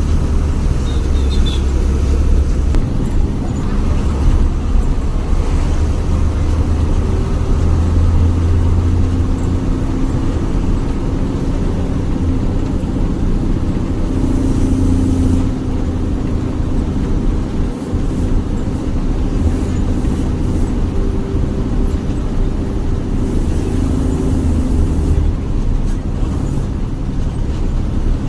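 Jaya Guna bus's diesel engine running on the road, a continuous low snoring growl (ngorok) that swells and eases as the engine works, with the engine note shifting up and down.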